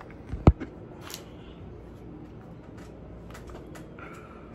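Handling noise from the recording phone being gripped and set in place. A sharp thump comes about half a second in, then scattered light taps and clicks.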